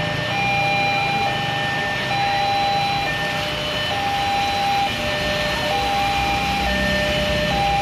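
Railway level-crossing warning alarm sounding its two-tone signal, a higher and a lower tone alternating about once a second, the sign that a train is approaching. Rain hiss and passing motorbike and car engines run underneath.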